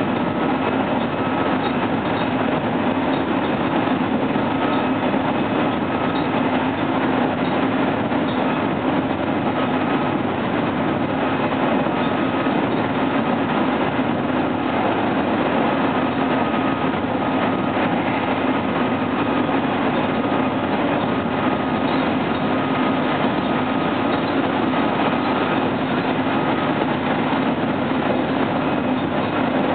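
Meitetsu 3100 series electric train running steadily along the line, heard from inside the front car: an even rumble of wheels and running gear on the rails, with a faint high whine that comes and goes.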